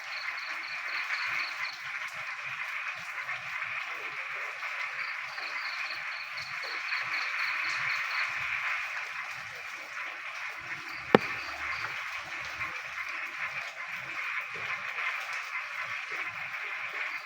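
Frogs calling in a dense, steady chorus, with a high pulsed call repeating in runs of several quick notes, about five a second. A single sharp tap sounds about eleven seconds in.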